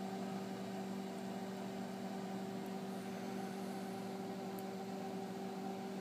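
900-watt microwave oven running at full power: a steady hum of several constant tones over the whirr of its fan.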